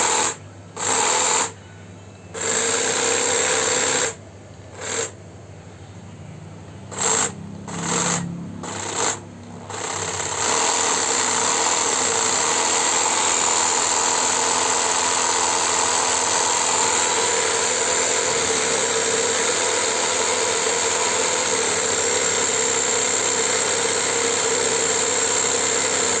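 NRT Pro cordless jigsaw running with its blade free in the air, not cutting. It starts and stops in a string of short trigger pulls of varying length over the first ten seconds, then runs steadily from about ten seconds in.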